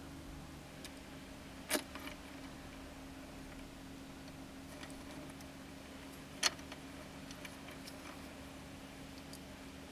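Fine silver chain links and steel pliers clicking: two sharp metallic clicks about five seconds apart and a few fainter ticks, as the links are handled and squeezed closed. A faint steady hum runs underneath.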